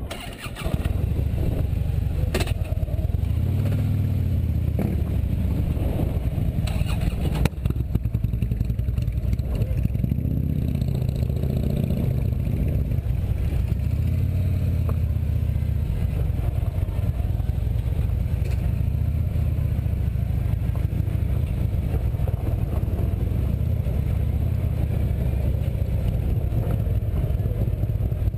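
Touring motorcycle's engine pulling away and accelerating, its pitch rising and dropping several times as it shifts through the gears, then running steadily at road speed.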